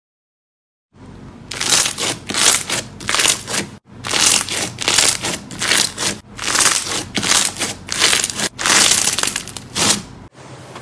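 Crunchy, granular slime crackling and crunching as fingers press and squeeze it, in repeated strokes about twice a second, starting about a second in.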